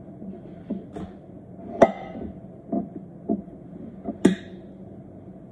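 A kitchen knife cutting a flatbread on a plate: about seven scattered knocks and clicks of the blade on the plate, the sharpest nearly two seconds in and another a little after four seconds, over a steady low hum.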